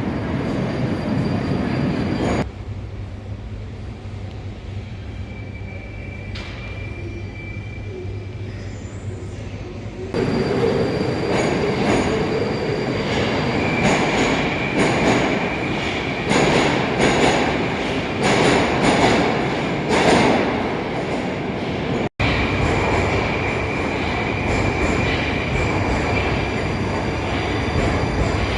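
Metro train noise: wheels running on rail with a high steady squeal and repeated clatter. The sound changes abruptly a few times, quieter for a stretch early on, then louder with rhythmic wheel strokes.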